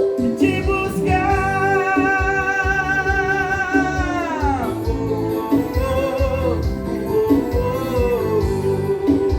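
Singing with guitar accompaniment. About a second in, a long high note is held for roughly three seconds, then slides down, and the song carries on.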